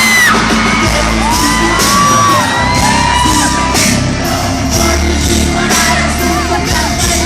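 Live pop-rock band playing in an arena: a held and gliding sung vocal line over bass and steady drum and cymbal strokes, with the crowd shouting and whooping.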